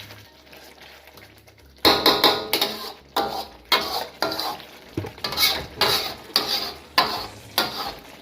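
A spoon stirring and scraping through lamb karahi gravy in a hot pot, sizzling as it cooks. It starts about two seconds in, with a regular stroke about twice a second.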